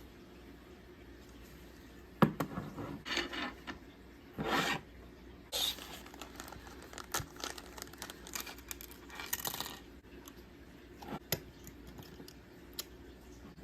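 Packaging and a small plastic toy being handled while unboxed: irregular scraping and rustling with a few sharp clicks and taps, the loudest a click about two seconds in.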